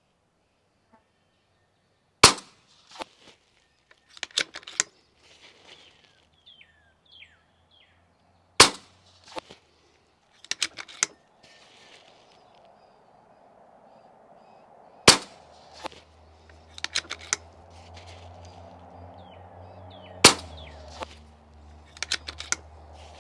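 Four suppressed shots from a RAW HM1000X .25-calibre PCP air rifle, spaced about six seconds apart. Each sharp crack is followed by a cluster of small metallic clicks as the side-lever action is cycled and the next pellet loaded. A few faint bird chirps come between the first two shots.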